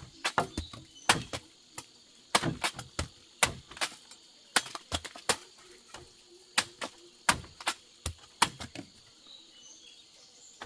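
A string of irregular sharp knocks and clicks, some close together in quick clusters, over a faint steady high-pitched hiss.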